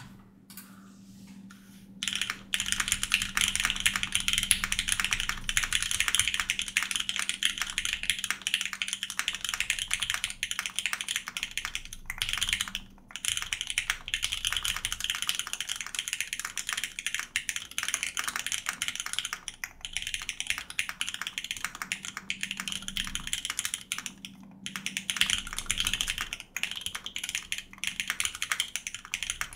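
Continuous typing on a 60% aluminum mechanical keyboard with Cherry MX Black linear switches, a UHMWPE plate and CRP R4 keycaps: a dense run of rapid keystrokes starting about two seconds in, broken by a few short pauses.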